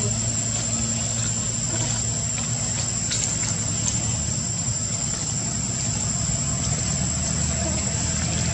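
Steady low engine hum, like a motor idling, with a constant thin high-pitched whine above it and a few faint ticks.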